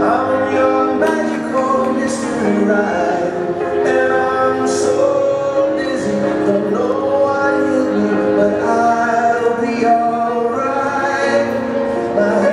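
Recorded song with long held sung notes over instrumental accompaniment, played through stage loudspeakers.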